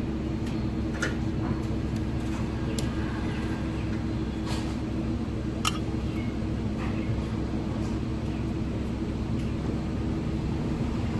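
Steady low mechanical hum with a few light clicks or taps in the first half.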